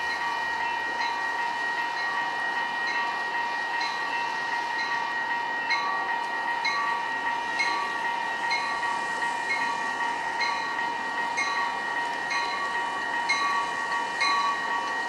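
Railroad bell ringing at a Metra commuter train stop, struck about once a second and a little faster near the end, over a steady high whine.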